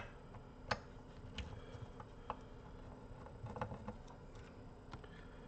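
Screwdriver working the screws out of a car amplifier's circuit board and chassis: scattered light metal clicks and ticks at uneven intervals, the sharpest at the very start and just under a second in.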